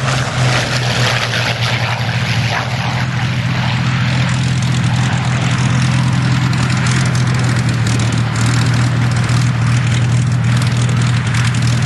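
Hawker Hurricane's Rolls-Royce Merlin V12 engine running steadily at low power as the fighter taxis, its propeller turning, with a deep steady drone and a rushing hiss over it.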